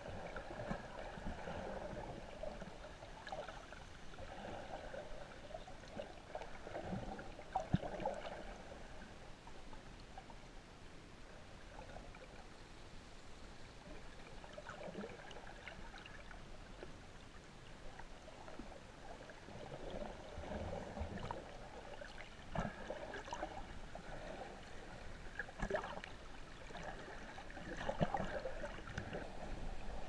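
Shallow sea water sloshing and gurgling around a camera held just below the surface, swelling and easing with the small waves, with a few soft knocks.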